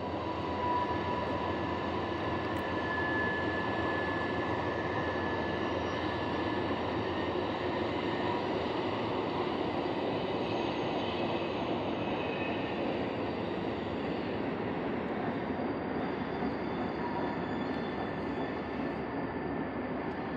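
Distant train running on through the gorge below: a steady noise of wheels on rail with faint, drawn-out squealing tones, growing slightly quieter toward the end.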